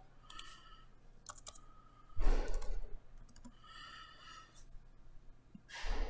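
Computer keyboard keys clicking as a short caption word is edited, with a loud breath-like puff on the microphone a little over two seconds in and a weaker one near the end.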